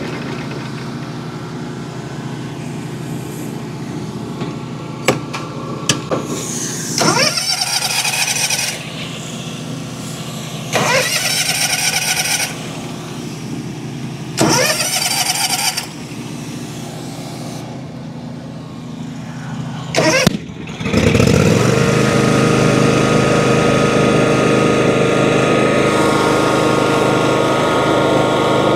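John Deere X300 riding mower's V-twin engine running at a steady low speed, with a few sharp clicks and three short surges that rise in pitch. About three-quarters of the way through it speeds up sharply and runs on steadily at high speed.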